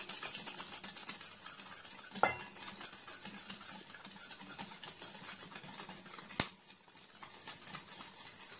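Wire whisk beating ghee and powdered sugar in a stainless-steel bowl, a quick steady patter of strokes against the bowl as the mixture is creamed. A brief ringing clink about two seconds in and a sharp click a little past six seconds.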